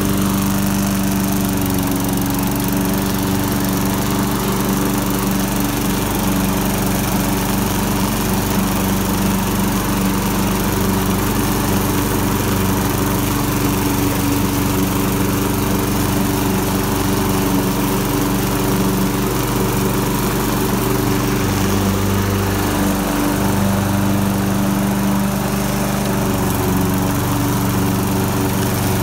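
The flathead Briggs & Stratton Quantum engine of a Husqvarna HU725AWD walk-behind mower runs steadily at mowing speed, shortly after a cold start.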